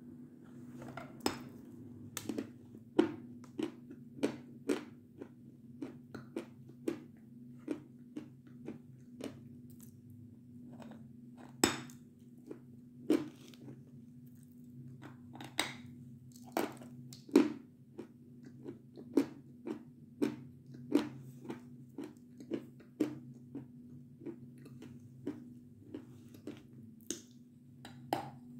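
Close-up bites and crunching chews of a hard slab of Belgorod chalk, a string of sharp, irregular crunches about one or two a second, a few of them much louder bites.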